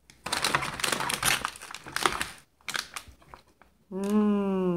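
Plastic snack wrappers crinkling and rustling against a paper bag as hands rummage through a bag of sweets, with dense crackles for the first couple of seconds and sparser ones after. Near the end a person makes a drawn-out vocal sound.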